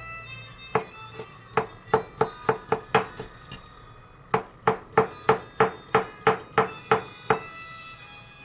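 Chef's knife chopping konnyaku into strips, the blade tapping a plastic cutting board at about three strokes a second. There are two runs of crisp taps, with a pause of about a second between them, over background music.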